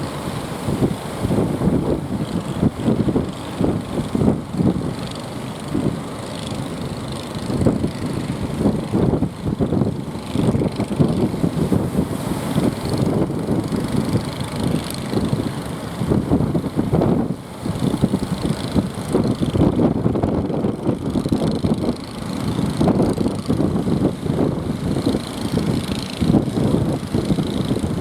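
Boat engine running, with wind gusting and buffeting the microphone in uneven bursts.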